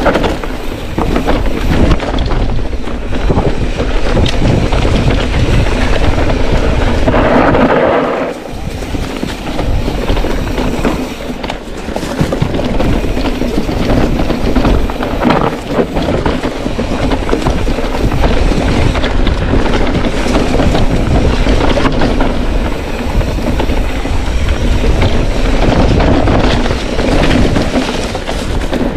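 Steady rumble and rattle of a bike rolling over a rough, rocky trail, with wind buffeting the microphone. There is a short lull about eight seconds in.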